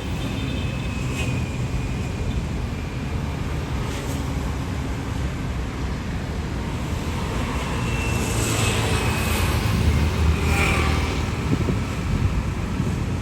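ATR turboprop airliner's engines running: a steady low rumble with a thin high whine that swells about eight to eleven seconds in. Wind buffets the microphone.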